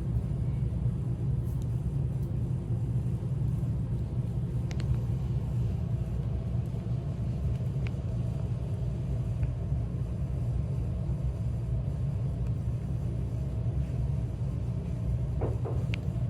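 Steady low rumble of a car in motion, heard from inside the cabin, with a few faint ticks.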